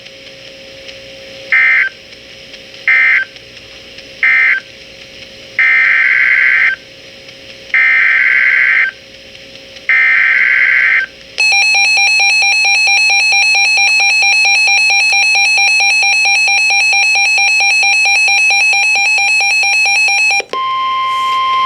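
Emergency Alert System signals on weather radio. First come three short data bursts, which are end-of-message codes, then three longer warbling data bursts, which are the SAME header of the next alert. Then the harsh two-tone EAS attention signal holds steady for about nine seconds, and a single steady tone follows for about the last second.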